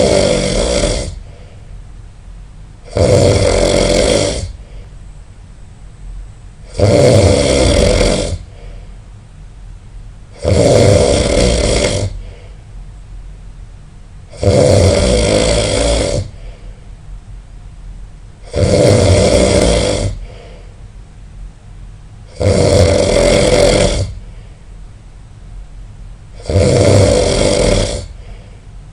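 A person snoring loudly: eight snores at a steady rhythm, one about every four seconds, each lasting a little over a second.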